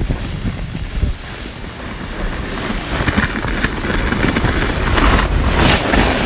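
Wind buffeting a phone's microphone, with rustling and rubbing from the phone being jostled against a winter jacket; the noise grows louder near the end.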